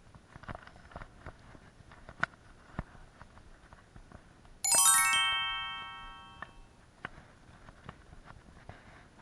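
A short bell-like chime effect about halfway through: a quick run of ringing notes stepping downward, which rings out and fades over about a second and a half. Before and after it there are only scattered small clicks and ticks.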